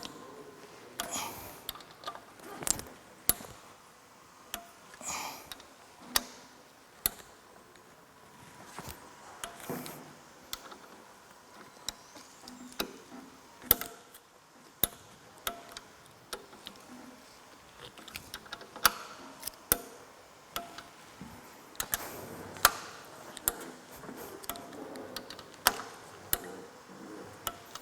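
Click-type torque wrench tightening crankshaft main bearing cap bolts: many sharp, irregularly spaced clicks. The wrench's click marks each bolt reaching its set torque.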